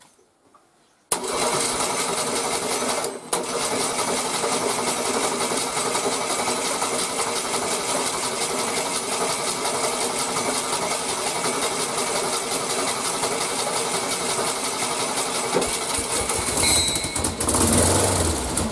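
A VW Beetle starter motor in a gearbox-bellhousing bench rig cranking an air-cooled VW flat-four engine. It starts about a second in, with a brief break about 3 s in, and cranks steadily on a battery that may be too weak. Near the end the sound turns uneven as the engine begins to fire.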